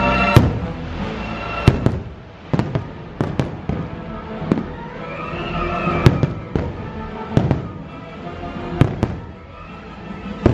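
Aerial fireworks shells bursting overhead: about a dozen sharp bangs at irregular intervals, some in quick pairs, with music playing underneath.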